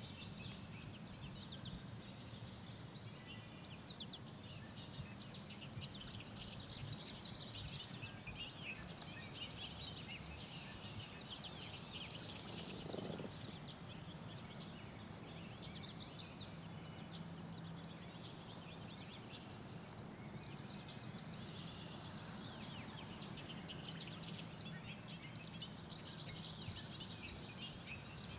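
Songbirds singing and chirping in a spring field, with a high rapid trill about a second long heard twice, once right at the start and again about halfway through. A faint low hum sits underneath.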